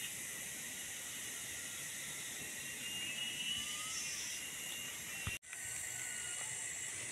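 Steady, high-pitched outdoor background hiss, with a faint short chirp about three and a half seconds in and a brief cutout to silence just past five seconds.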